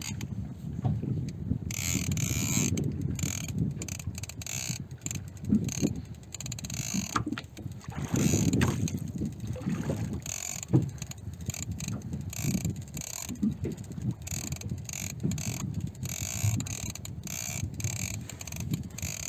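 Fishing reel clicking in quick, irregular runs as a large fish is played on light line, starting about two seconds in. A low rush of wind and water against the boat runs underneath, swelling briefly near the middle.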